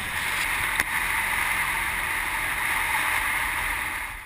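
ATV riding along a gravel trail, heard from a camera on the machine: a steady noise of wind and tyres on gravel, with no clear engine note standing out. It cuts off suddenly at the end.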